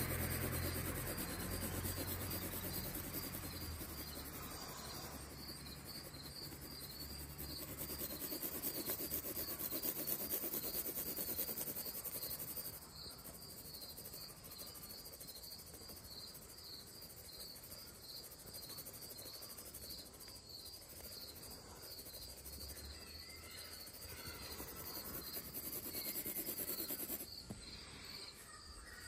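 Graphite pencil scratching and hatching on paper, louder in the first half and softer after about 13 seconds. A faint, high, regular chirp repeats about three times a second behind it.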